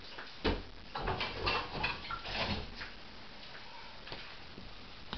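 Irregular rustles and sharp clicks from hands handling a pheasant carcass while breasting it, bunched into the first three seconds and then stopping.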